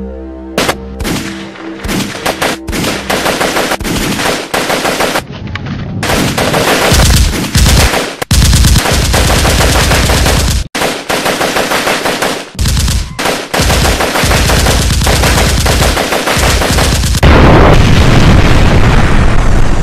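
Automatic rifle fire in repeated rapid bursts. Near the end it gives way to the continuous rumble of an explosion.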